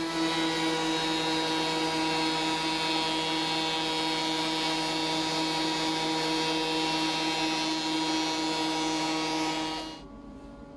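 Benchtop thickness planer running with a steady whine while sapele boards are fed through it. It stops abruptly near the end.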